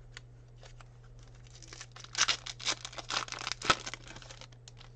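Foil wrapper of a Fleer Ultra basketball card pack being torn open and crinkled: a run of crackling tears from about a second and a half in until about four seconds.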